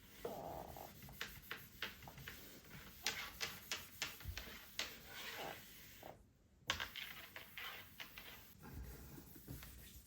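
Small clicks, taps and light knocks of household objects being handled, with soft rustling between them. About six seconds in, the sound drops briefly to near silence.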